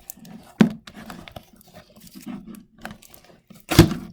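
Homemade slime being squished and stretched by hand, making irregular sticky clicks and crackles, with a louder pop near the end.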